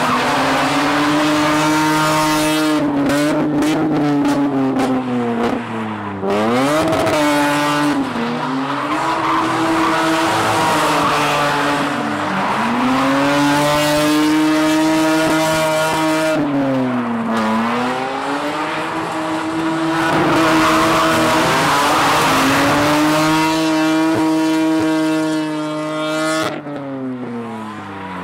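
Car engine held at high revs through a burnout, dropping and climbing back briefly every few seconds, with the tyres squealing as the car spins donuts with its drive wheels spinning.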